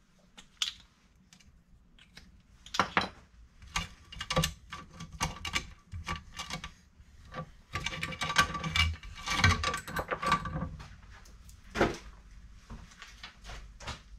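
Irregular metallic clicks and rattles as a saw chain and small tools are handled on a chainsaw bar, with a dense run of clinking about eight to ten seconds in.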